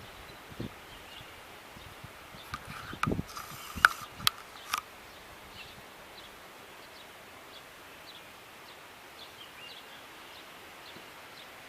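Quiet outdoor ambience: a handful of sharp knocks and clicks in the first five seconds, then faint short chirps repeating roughly once a second.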